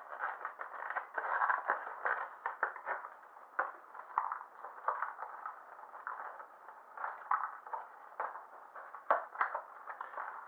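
Cardboard packaging being handled and opened by hand: irregular rustling, scraping and small clicks as a sleeve is slid off a box and its inner tray pulled out.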